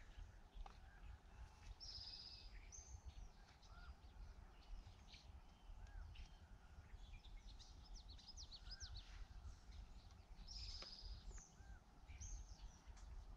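Faint wild birdsong: scattered short high chirps and calls over a steady low rumble, with the same buzzy song phrase heard once near the start and again about nine seconds later.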